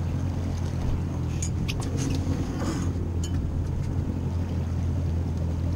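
Boat's outboard motor running steadily at low speed, a low even hum. A few short sharp clicks come in quick succession about a second and a half in.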